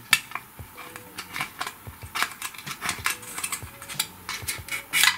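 Irregular small clicks and taps of hands handling plastic parts: battery-box wires being threaded through holes in a smoke detector's plastic housing.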